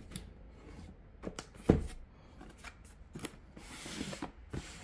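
Cardboard box being handled and turned over on a table: a few light knocks and taps, the loudest about one and three-quarter seconds in, and a short rubbing slide of card on cloth about four seconds in.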